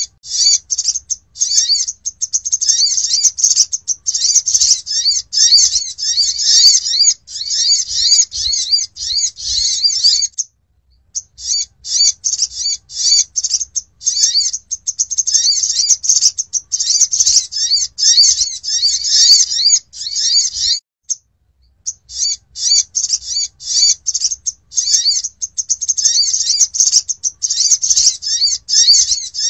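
Olive-backed sunbird (sogok ontong) calling: rapid, high chirps packed into long runs, with two brief breaks about ten and twenty-one seconds in. A repeated lure-call recording used to draw in sunbirds.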